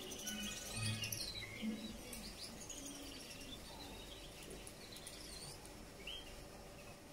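Male Gouldian finch singing its quiet courtship song: thin, high chirps and sweeping squeaks, busiest in the first two seconds and again a little past the middle.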